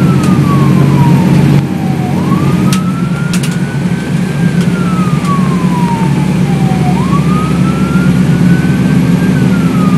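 Fire engine's siren wailing, rising and falling slowly in about two full cycles. It is heard from inside the Ferrara fire engine's cab over the steady low drone of the engine and road noise.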